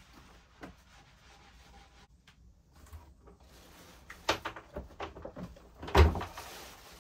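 Scattered knocks and bumps of a person moving about a sailboat's wooden cabin, a cluster of them about four seconds in, then one loud, deep thump about six seconds in.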